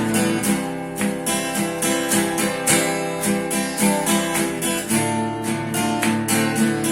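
Acoustic guitar strumming chords in an instrumental break between verses of a folk song.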